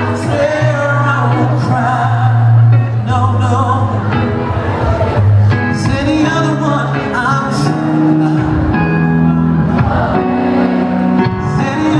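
Live band music played loud through a PA: a male lead vocal sung over electric bass and electric guitar.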